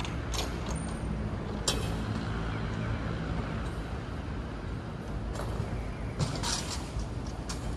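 City street traffic: a steady low rumble of passing vehicles, broken by a few short, sharp hisses and clicks.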